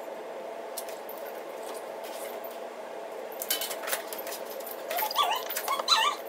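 Golden retriever puppy whimpering and yipping in quick, high-pitched cries from about five seconds in, eager for its food. A few clatters come just before, over a steady hum.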